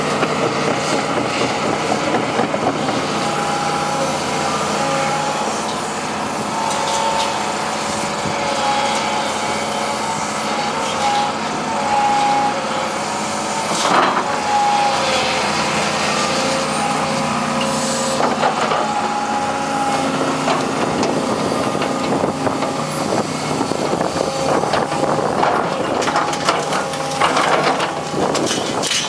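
Daewoo hydraulic excavator running under load, its diesel engine steady and its hydraulic pump whining in held tones that rise and drop away as the boom and bucket move. The bucket knocks into the junk pile about halfway through and scrapes and clanks against scrap near the end.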